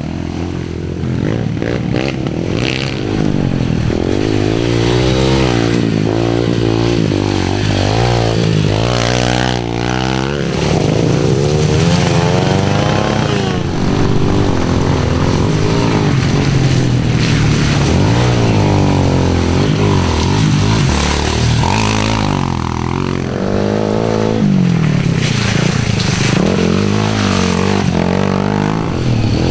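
Pit bike engines revving up and down again and again as the bikes are ridden through mud, the pitch rising and falling with each burst of throttle.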